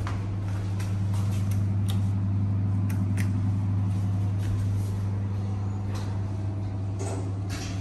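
Passenger lift car travelling between floors: a steady low hum from the lift, louder from about a second in, with a few light clicks and a short burst of noise near the end.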